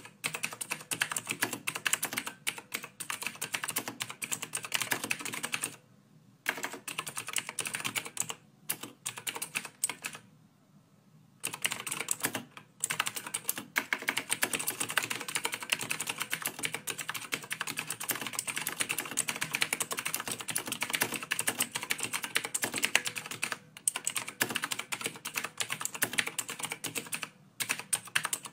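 Rapid, continuous clicking like typing on a keyboard, in long runs with a few short breaks.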